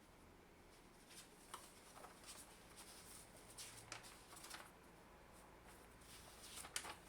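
Faint, scattered clicks and taps of a drill chuck and drill press parts being handled and tried together, with one sharper click near the end.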